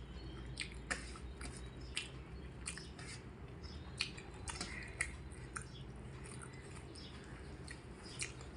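A person chewing a mouthful of food, with short wet smacks and clicks at irregular intervals.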